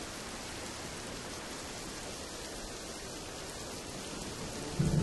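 Steady rainfall, an even hiss of rain on a hard surface. Music starts loudly just at the end.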